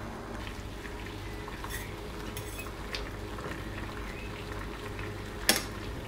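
A metal fork clinking against a stainless steel saucepan as it turns pak choi in boiling water, over the steady bubbling of the water. A few light clinks come early, and one sharp clink near the end is the loudest.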